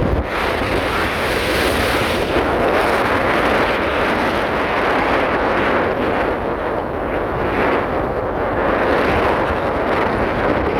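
Steady rushing of wind and sea aboard a ship under way, with wind buffeting the microphone.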